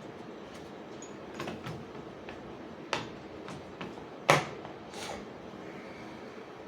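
Hand tools being handled: a few separate clicks and knocks, the loudest and sharpest about four seconds in.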